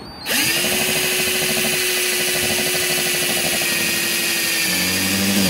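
Electric drill driving a bolt into the seam of a plastic washing-machine tub. It spins up to a steady whine, its note drops near the end as the fastener tightens, and it stops abruptly.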